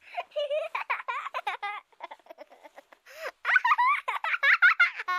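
Young children's voices laughing and giggling in quick high-pitched runs, dropping quieter for about a second near the middle before picking up again.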